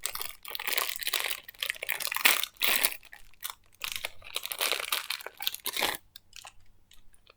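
Packaging of a fidget toy crinkling and rustling as it is handled and opened, in quick dense crackles that stop about six seconds in, followed by a few faint light taps.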